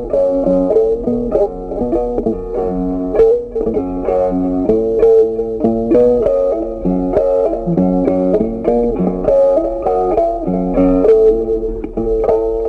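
Background music: an instrumental tune of short plucked notes, with a steady melody and bass line.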